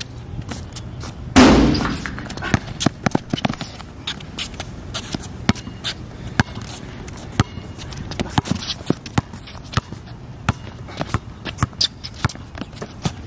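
A basketball bounced on an outdoor hard court, with sharp, irregular bounces throughout. One loud impact with a short ringing tail comes about a second and a half in, the jump shot striking the hoop.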